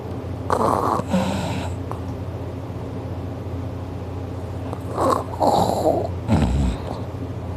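A man snoring loudly in his sleep: two rasping snores, about half a second in and about five seconds in, the second ending in a short deep snort.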